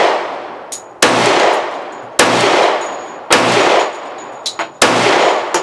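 Glock 20 10mm pistol firing 200-grain hard-cast bear loads, four shots roughly a second apart, each ringing out, with light clinks between shots. The pistol cycles the heavy rounds with no malfunction.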